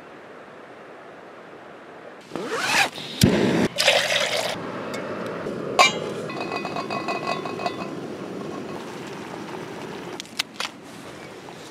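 A paper packet crinkling and being handled, then its contents poured into a black camp mug, with a few clinks against the mug.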